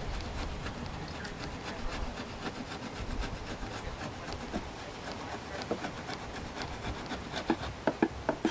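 Hive tool scraping sticky propolis off the wooden hive body and frames of a beehive brood box, in quick repeated scraping strokes, with a few louder sharp clicks near the end.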